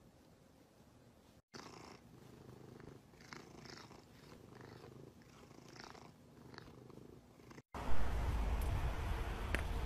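Grey cat purring softly while its chin is scratched. After about eight seconds, louder outdoor background noise with a low rumble takes over, with one sharp click near the end.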